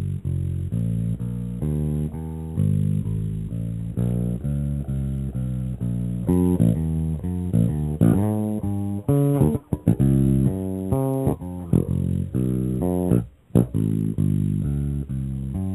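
Electric bass guitar playing a run of plucked notes in a live band recording, the line moving up into higher notes about six seconds in, with a couple of short breaks near the end.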